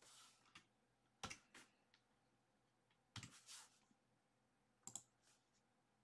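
Near silence broken by faint, short clicks and taps in four small groups, a few to a group.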